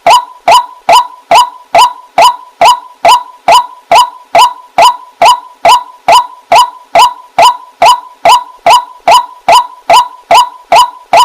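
White-breasted waterhen (burung wak-wak) calling: a loud, steady series of short 'wak' notes, about two a second, each dropping slightly in pitch.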